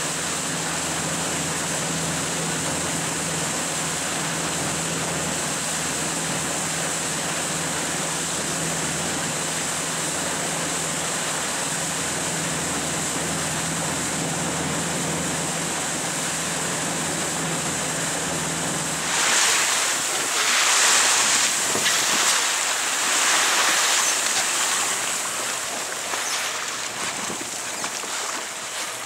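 Wind and waves around a boat on open water, over a steady low boat-engine hum. The hum stops suddenly about two-thirds of the way through. After that, louder gusts of wind buffet the microphone in several uneven surges.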